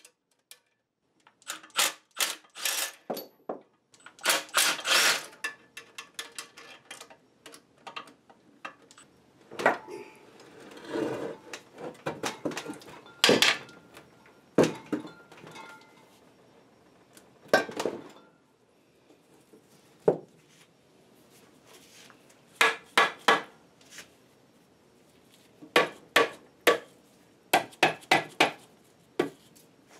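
Steel tools and small machine parts clinking and knocking against the cast-iron body of a milling machine being taken apart: scattered sharp clacks, some in quick runs, with quieter pauses between.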